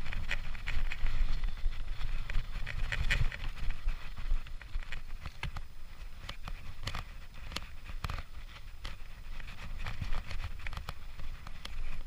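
A mountain bike ridden over a bumpy dirt trail: the tyres run on the dirt while the bike rattles with irregular clicks and knocks, heard through a chest-mounted action camera with a low wind rumble. The rattling is busier in the first half.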